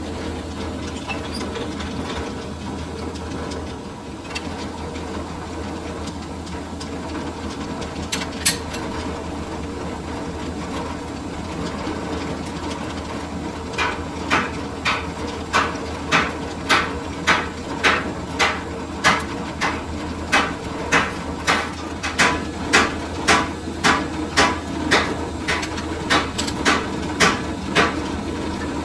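Metal lathe running with a steady hum. A sharp click comes about a third of the way in, and from about halfway to near the end a regular series of sharp metallic knocks sounds, about two a second.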